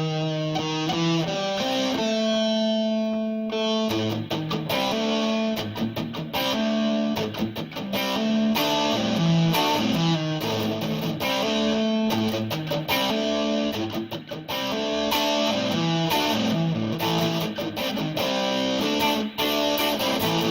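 Electric guitar played through a booster-overdrive pedal: picked single notes and chords, with a chord held for about two seconds early on, captured on a cell phone microphone.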